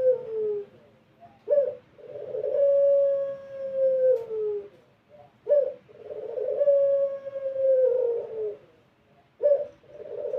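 Puter (Barbary dove) of the pelung type cooing. It repeats a phrase about every four seconds: a short sharp note, then a long, low, drawn-out coo that drops in pitch at the end.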